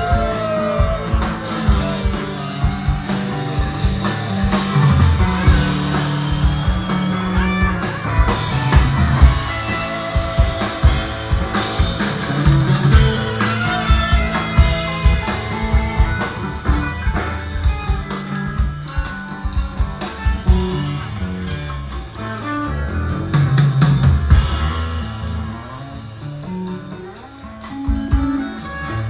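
Live rock band playing an instrumental passage without singing: two electric guitars, electric bass and drum kit. The drums thin out and the playing gets quieter near the end.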